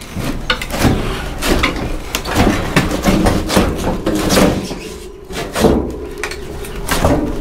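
Sheet-metal outer case of an old window air conditioner being slid and lifted off its chassis: irregular metal knocks, clunks and scraping throughout.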